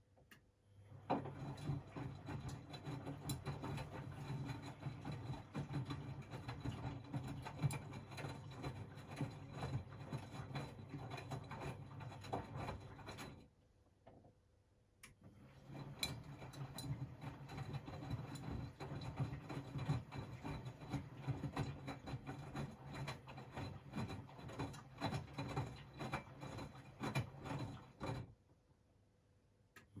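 Miele VivaStar W 400 washing machine tumbling a small load in the wash phase of a cottons 40 °C programme. The drum turns for about twelve seconds, stops for about two seconds halfway through, then turns again for about twelve seconds before stopping near the end. The turning brings a low motor hum and a run of soft clicks and rubbing.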